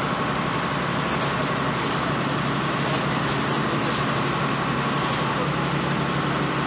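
Steady engine noise of a truck-mounted crane running while it lifts a heavy load, heard on old video footage, with a constant low hum and a thin steady tone underneath.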